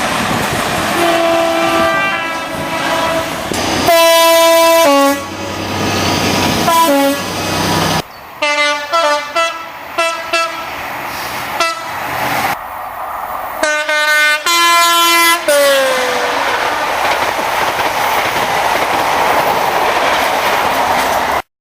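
British trains' two-tone horns sounding in a string of short edited clips, several horn blasts with abrupt cuts between them. About fifteen seconds in, one horn slides down in pitch as it ends, and a passing train's rushing rumble with wheel clatter follows until the sound cuts off.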